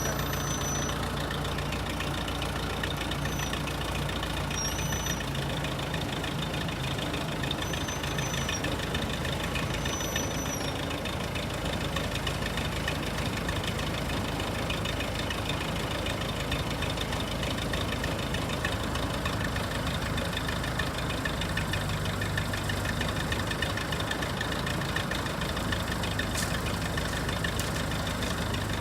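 Backhoe's diesel engine running steadily at idle, its low note shifting slightly a few times.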